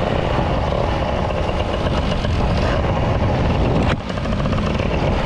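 Two-stroke moped engine running hard, under a dense, steady rushing noise; the sound dips briefly about four seconds in.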